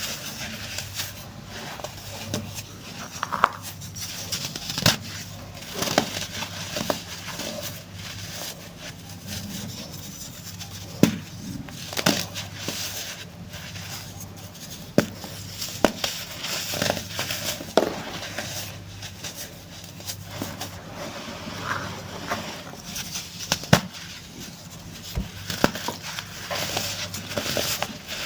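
Chunks of dried baking soda being crumbled and crushed, with irregular sharp crunches every second or two over softer crackling. A faint steady low hum runs underneath.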